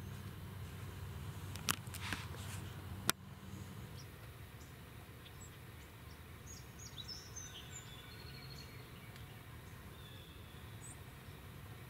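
Two or three sharp knocks or clicks in the first three seconds over a low background hum that drops after the last knock, then scattered faint bird chirps.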